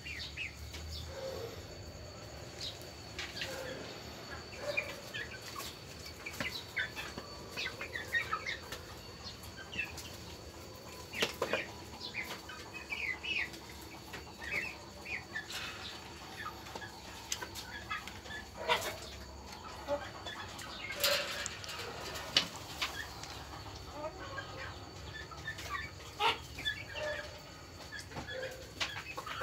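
A small flock of chickens clucking and chirping in short calls, with wings flapping now and then and scattered sharp clicks and knocks.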